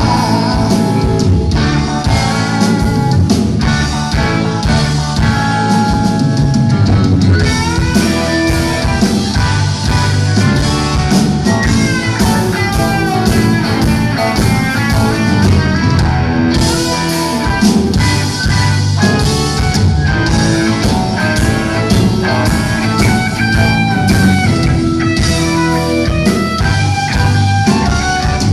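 Rock band playing live: electric guitars, keyboard and drum kit in an instrumental passage, with a lead guitar line bending in pitch, recorded from the crowd.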